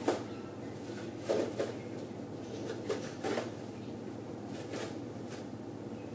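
Scattered light clinks and knocks of stainless steel dish rack parts being handled and fitted, about seven in all, over a steady background hum.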